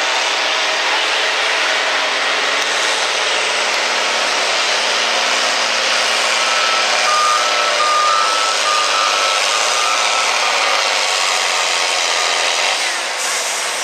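John Deere farm-stock pulling tractor's diesel engine running hard under full load as it pulls a weight-transfer sled, loud and steady throughout. In the middle a run of short electronic beeps sounds over it.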